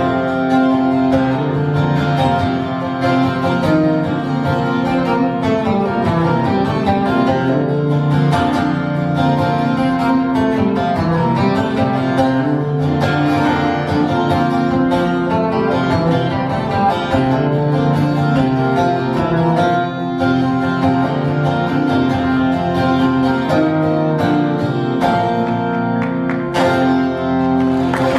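Acoustic guitar playing a melodic instrumental passage of a folk song, live on stage.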